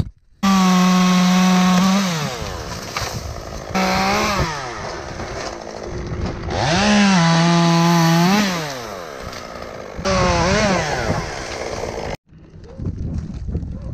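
Two-stroke chainsaw revved to full throttle four times, its pitch gliding back down toward idle between each burst. The sound starts and stops abruptly.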